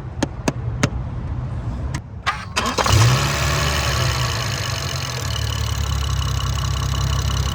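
BMW B58 3.0-litre turbocharged inline-six starting: a run of quick clicks, then about three seconds in the engine cranks, fires and settles into a steady idle. It is the first start after the PCV diaphragm in the valve cover was redone, a check for the whistle of a failed diaphragm.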